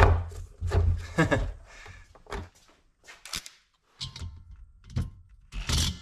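Diesel heater's plastic housing being worked loose and pulled off on a wooden bench: a series of plastic thunks and knocks, with a sharp click about three and a half seconds in and a louder, noisy stretch of handling near the end.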